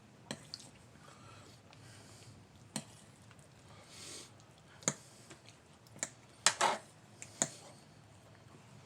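Cutlery clicking and clinking against a plate or takeout container during a meal, about seven sharp separate clicks spread out, the loudest pair about six and a half seconds in, with a short soft rustle about four seconds in.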